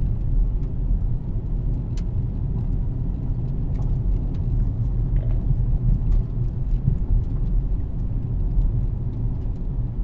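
Steady low rumble of a car driving, heard from inside the car, with scattered faint clicks and ticks throughout.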